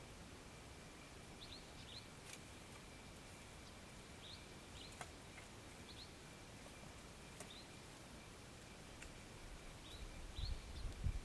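Quiet bush ambience: short high bird chirps, often in quick pairs, every second or two over a steady faint high tone, with a few faint clicks. Low rumbling rises near the end.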